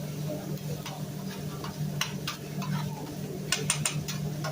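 Metal spatulas clicking and scraping on a teppanyaki griddle as food is cooked: scattered sharp clicks, with a quick run of them near the end, over a steady low hum.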